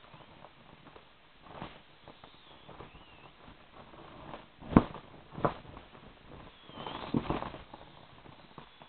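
A jumbo plastic inflatable shamrock being squeezed and handled to press the air out: scattered crinkles and rubs of the plastic, two sharp knocks about halfway through, and a flurry of crinkling near the end.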